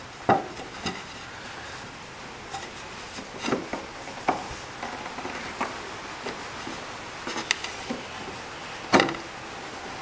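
Scattered light clicks and knocks of a thin aluminum trim tab and a steel bar being shifted and pressed into position on a plywood workbench, with the sharpest knock near the end.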